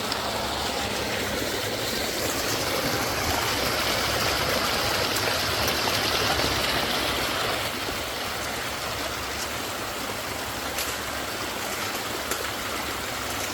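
Rain-swollen runoff cascading down a long, steep waterfall channel: steady rushing, splashing water, a little louder for a few seconds in the middle.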